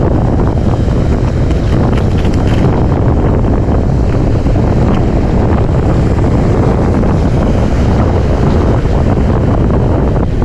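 Strong wind buffeting the microphone, with surf washing up the beach and waves breaking underneath.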